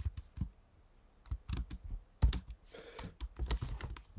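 Computer keyboard keys being typed: a few keystrokes, a pause of about a second, then quick runs of key clicks.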